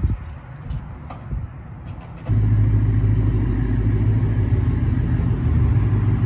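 A neighboring car's engine comes in abruptly about two seconds in and then runs steadily with a low, even hum. Before it, a few light clicks.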